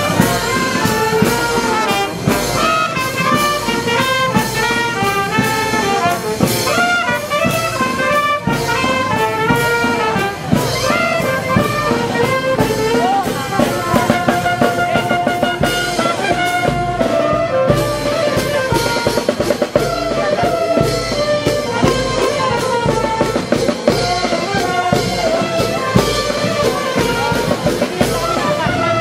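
A marching brass band playing a lively tune with trumpets, trombones and a sousaphone, while drums keep a steady beat.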